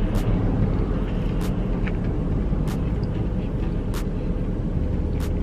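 Steady low hum of a car idling, heard inside the cabin. Over it come sharp mouth clicks roughly every second and a quarter, as a mouthful of burger is chewed.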